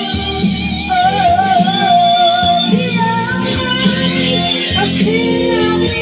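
Music: a song with a sung melody over guitar accompaniment.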